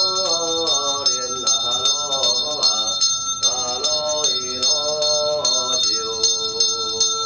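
A ritual hand bell rung rapidly and evenly, about five strokes a second, under a voice chanting in long drawn-out notes.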